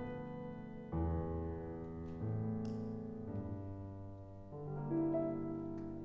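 Piano playing slow chords in a classical composition, a new chord struck every second or so and left to ring and fade.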